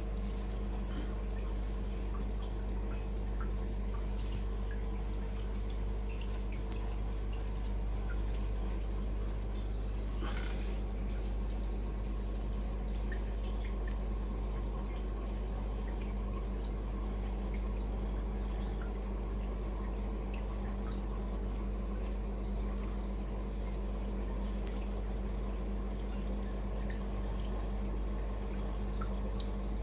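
Reef aquarium running: a steady low hum from the tank's equipment under water trickling and dripping, with small scattered ticks and one brief louder noise about ten seconds in.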